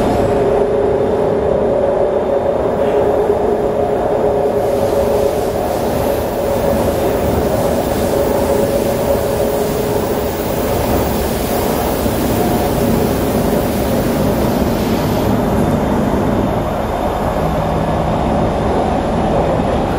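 Kawasaki C151 metro train running along the track, heard inside the passenger car: steady wheel-and-rail rumble with the hum of its permanent-magnet synchronous traction motors. The motor hum fades about halfway through, and a lower hum comes in near the end.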